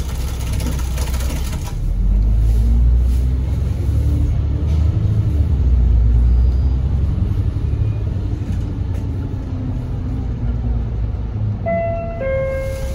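Cabin sound of a KMB Alexander Dennis Enviro500 double-decker bus under way: a hiss cuts off just under two seconds in, then the diesel engine rumbles louder as the bus accelerates, its pitch rising and falling through the gears. Near the end a two-note descending chime sounds, the on-board signal before the next-stop announcement.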